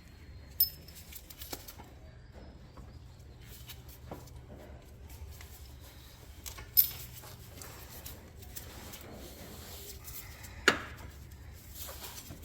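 Scattered metallic clinks and taps of hand tools and steel parts being handled while an ATV's front axle and steering knuckle are taken apart, with three sharp clinks standing out, the loudest near the end. A faint low hum runs underneath.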